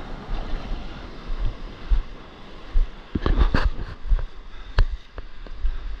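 Shallow whitewater surf washing and splashing around a wading paddleboarder, with wind buffeting the microphone in low thuds. A burst of louder splashes comes about three seconds in, and a sharp knock near five seconds.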